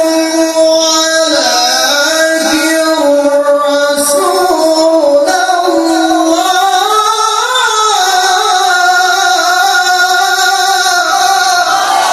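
A qari's melodic Quran recitation (tilawah) in a high register: one man's voice holding long, ornamented notes that bend up and down without a break.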